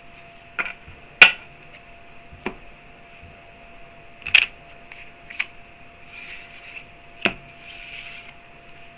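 Tarot cards being handled and laid out on a surface: about six sharp taps at uneven intervals, the loudest a little over a second in, with soft papery swishes near the end.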